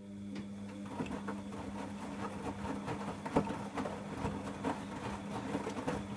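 Bosch Logixx 8 washing machine's drain pump humming steadily as it pumps the wash water out, with irregular clicks and knocks of water and laundry in the drum over it.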